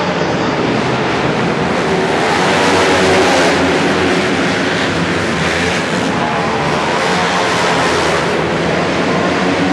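450cc single-cylinder four-stroke flat-track motorcycles racing on a dirt oval, engines held high in the revs through the turns, swelling slightly about three seconds in as they pass closest.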